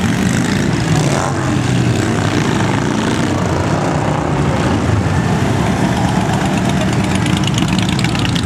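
Motorcycles and a quad bike riding past one after another, their engines running.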